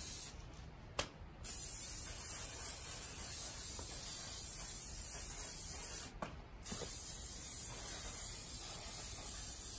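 Aerosol can of photo mount spray adhesive hissing in long sprays as a light second coat goes on. The spray breaks off briefly twice, about a second in and about six seconds in.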